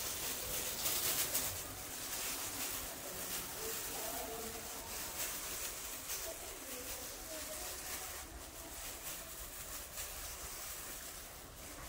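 Faint crinkling of disposable plastic gloves as potato dough balls are rolled between the palms, over a steady hiss, with a faint distant voice about four to seven seconds in.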